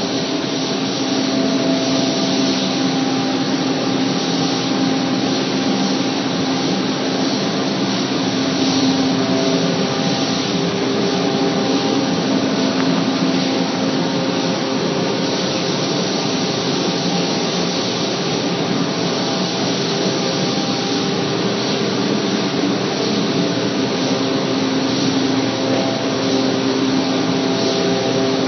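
Paint sprayer running: a steady motor drone with a rushing hiss of air, unchanging throughout.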